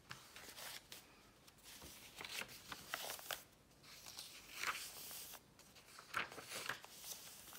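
Paper pages of a handmade junk journal being turned by hand: soft paper rustles and flaps in several short bursts.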